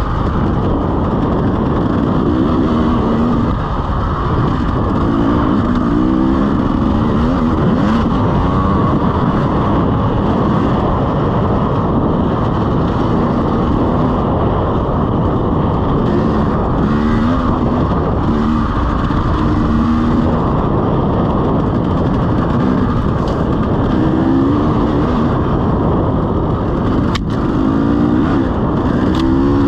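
Single-cylinder two-stroke engine of a 2017 KTM EXC 300 enduro dirt bike under hard riding, its pitch rising and falling again and again as the throttle is opened and shut. A single sharp knock comes near the end.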